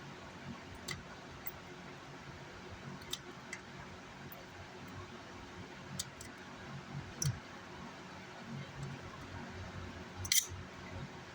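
Scattered light clicks and taps, about six of them with the loudest a little before the end, over a faint steady hum: hand tools and parts being handled while an amplifier circuit board is worked on at the bench.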